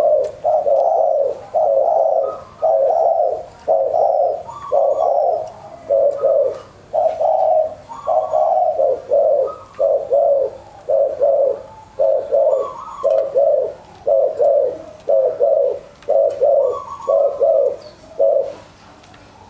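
Caged spotted doves (terkukur) kept as decoy birds, cooing in a long unbroken run of short coos at about two a second, with fainter, higher coos in between. The cooing stops about a second before the end.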